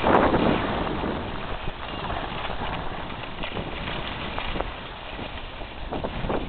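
Skis sliding and scraping over packed snow, with wind buffeting the microphone; loudest in a surge right at the start.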